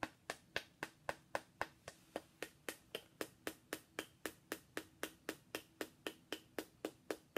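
A metal rod tapping rapidly and evenly on a small figurine, about four sharp clicks a second.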